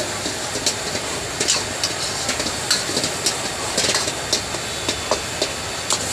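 Metal ladle clanking and scraping against a wok as minced pork is stir-fried, sharp irregular clinks about every half second, over the steady hiss of the gas wok burners and the frying food.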